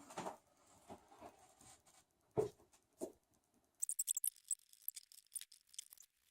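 Faint handling of paper craft materials: two soft knocks, then from about four seconds in a quick run of light, high clicks and crinkles.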